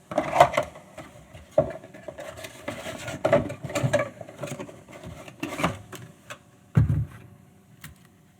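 Handling noises while unboxing a small digital camera: irregular clicks, taps and rustles of the camera, its accessories and packaging being picked up and set down, with a heavier knock about seven seconds in.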